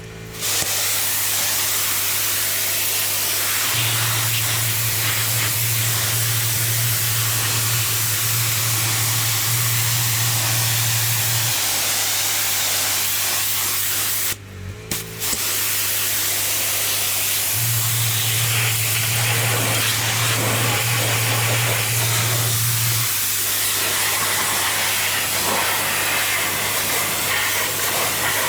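Pressure washer spraying a block paved patio: a steady hiss of the high-pressure water jet over a low engine hum. The spray cuts out briefly about halfway through, then resumes.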